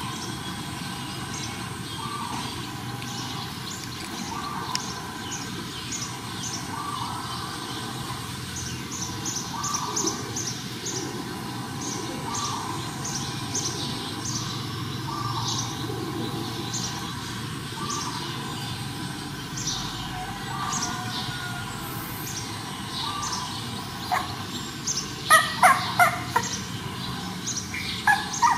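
Young puppies whimpering and squeaking on and off, with a quick run of louder yelps near the end.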